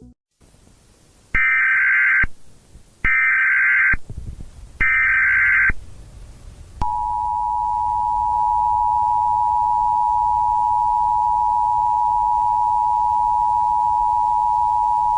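Emergency Alert System tones: three short bursts of SAME header data, each just under a second and evenly spaced, then after about a second's gap the EAS two-tone attention signal (853 and 960 Hz), a steady high dual tone that holds for over eight seconds.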